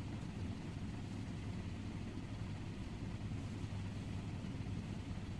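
Steady low mechanical hum that holds level throughout, with no speech.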